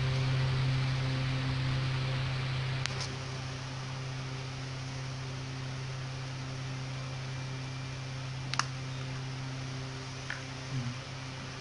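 A steady low hum, with three sharp metal clicks from a flathead screwdriver working the screws on the back plate of a Baofeng UV-82 handheld radio: about three seconds in, near the middle and near the end.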